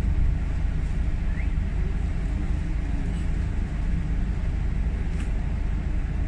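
Steady low engine rumble with city traffic noise. A short faint rising chirp comes about a second and a half in, and a soft click around five seconds.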